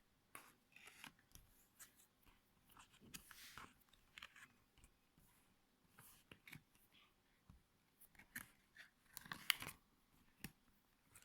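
Faint rustles and clicks of a children's board book being handled, its stiff pages turned, with a louder rustle about nine and a half seconds in.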